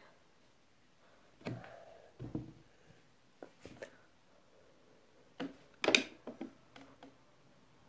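A few soft clicks and knocks from small objects being handled close to the microphone, with quiet stretches between them; the sharpest click comes about six seconds in.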